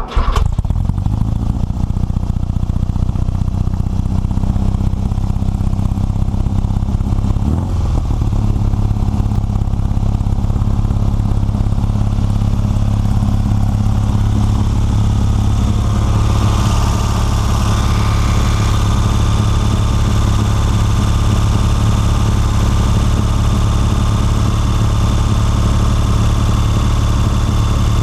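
Air-cooled Volkswagen flat-four engine idling steadily, exhaust joints fitted with new donut-gasket clamps being run to check their seal.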